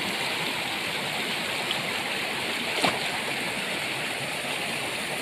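Rushing water of a rocky mountain stream: a steady, fairly loud rush, with one short sharp sound about three seconds in.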